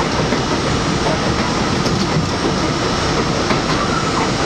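New York City Subway J train running at speed on elevated track, heard from inside the car: a steady rumble of wheels on rail with a few short clicks.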